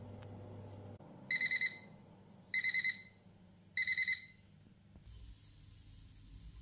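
Sage countertop oven's fan hum cuts out about a second in, followed by three short high beeps, each a rapid run of pips: the oven's end-of-cooking alert.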